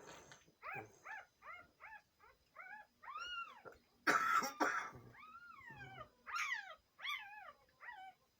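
A sleeping woman whimpering: a quick series of short, high squeaks, then longer cries that rise and fall in pitch. About four seconds in there is a loud, breathy, snort-like burst, followed by more squeaky whimpers.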